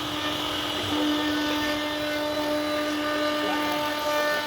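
CNC router spindle running at speed, carving wood, with a steady high whine.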